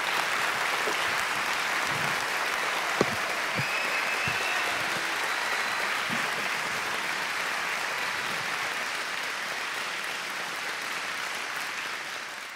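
Audience applauding steadily after a speech, easing off slightly and fading out near the end.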